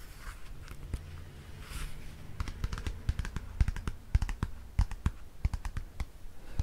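Close-miked handling of a small book: a soft rustle, then from about two and a half seconds in, quick irregular taps and clicks of fingers and nails on the book with soft thumps.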